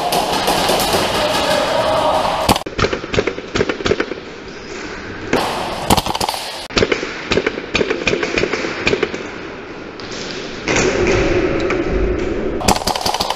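Airsoft gunfire: scattered sharp clacks and taps from airsoft rifles firing and BBs striking plastic barricades, some in quick strings.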